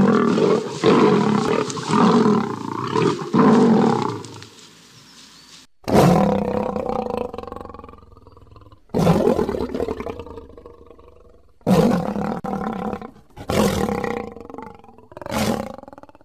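Big-cat roars offered as the extinct American lion: a run of pulsing roar calls for about the first four seconds, then, after an abrupt cut, five separate roars about two seconds apart, each starting suddenly and fading away.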